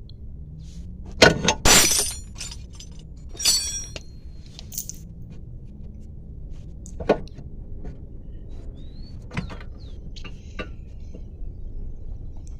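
Metal parts clanking and clinking, with short ringing after the sharpest hits. The loudest clanks come a little over a second in and again around three and a half seconds, followed by scattered lighter knocks. These are the sounds of a CV joint axle and front suspension parts being handled and fitted.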